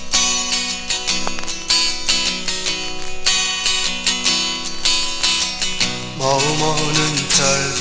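Acoustic guitar strumming a steady rhythm in the instrumental intro of a 1970s Korean folk-pop song, with a melody line coming in about six seconds in.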